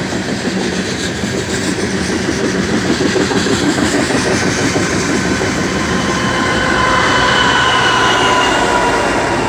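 Loaded coal train passing close at speed: a steady rolling rush of wheels on rail from the coal cars. In the second half a high whine, falling slowly in pitch, rises over it as the rear-end BNSF locomotives come by.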